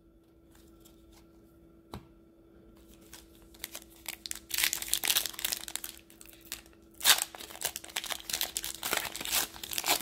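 A plastic foil basketball-card pack being crinkled and torn open by hand. Quiet at first with a single click about two seconds in, then crinkling and tearing from about four seconds in, in two loud spells.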